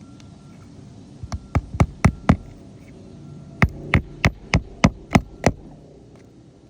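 Roofing hammer driving nails into asphalt shingles: a run of about six blows, a short pause, then about seven more at roughly three blows a second.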